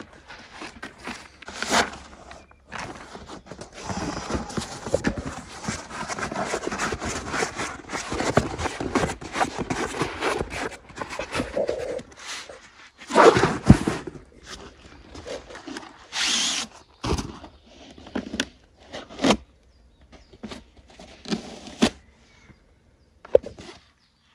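Rustling and scraping of camping sleeping mats and a packed air mattress being handled and spread out. A dense run of rasping scrapes fills the first half, then comes a series of separate rustles and knocks.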